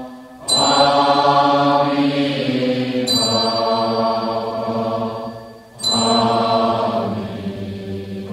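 Buddhist devotional chanting with musical backing, sung in three long held phrases, each starting after a brief dip in level.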